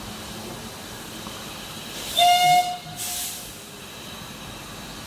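Steam whistle of the 1940 W.G. Bagnall locomotive Dunlop No. 6 gives one short loud blast about two seconds in as the train pulls away. A brief hiss of steam follows, over the low steady running noise of the train.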